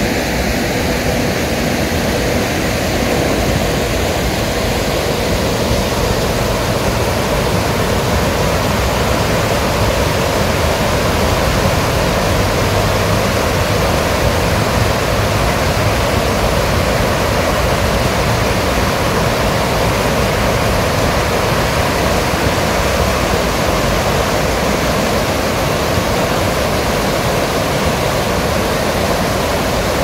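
Stream water rushing and splashing over a low stepping-stone crossing, a steady loud rush with no let-up.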